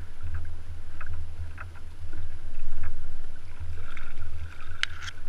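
Low, gusting rumble of wind and water on a kayak-mounted camera's microphone, rising and falling, with a few faint clicks, the sharpest near the end.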